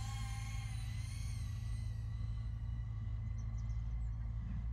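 Speedybee Bee25 2.5-inch cinewhoop quadcopter's brushless motors and propellers whining at a steady pitch over a heavy low rumble, the whine fading after about two seconds.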